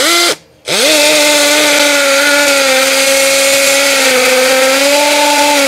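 Workfix ID13100 21 V cordless hammer drill boring into a concrete block in hammer mode: a short burst, a stop of under half a second, then steady drilling with the motor holding an even pitch.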